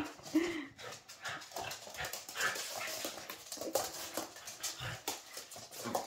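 Poodle puppy and another small puppy play-fighting on a hard floor: short whines and little vocal noises amid scuffling, with many small clicks and scrapes of claws and paws on the floor.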